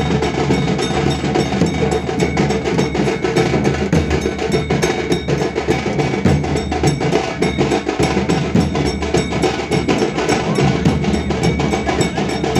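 Festival drums played in a fast, steady beat, with a metallic ringing over the strokes.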